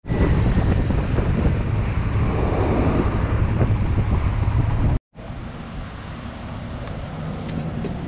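Royal Enfield Himalayan 411's single-cylinder engine running at low speed with wind buffeting the microphone. It cuts off suddenly about five seconds in, leaving a much quieter outdoor background.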